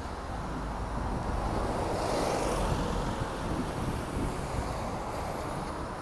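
Street traffic rumble, swelling as a vehicle passes about two seconds in.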